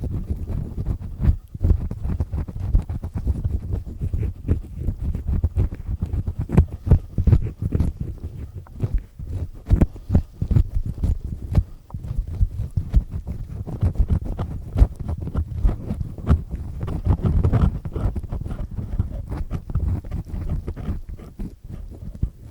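Earpick with three stacked discs scraping and grinding inside an ear held close to the microphone: a dense, irregular run of crackling scrapes and rubs, heaviest in the low end.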